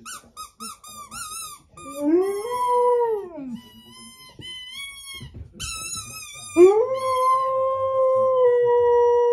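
Black Labrador squeezing a squeaky sprout toy in her mouth, giving quick high squeaks, and howling at it: a short howl that rises and falls, more squeaks, then a long steady howl from about two-thirds of the way in.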